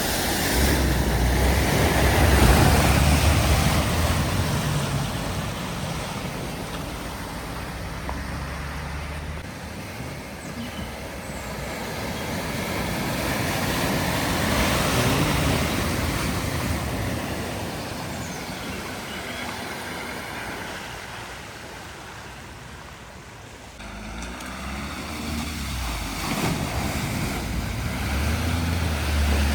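Vehicles driving through deep floodwater, the rush and spray of water thrown up by the tyres over a low engine rumble. The sound swells twice, loudest about two to three seconds in and again about fifteen seconds in, as vehicles pass.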